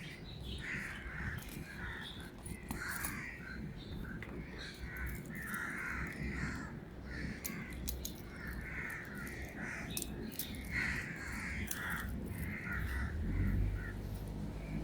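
Birds calling over and over, short repeated calls with no pause between them, with a few light clicks among them.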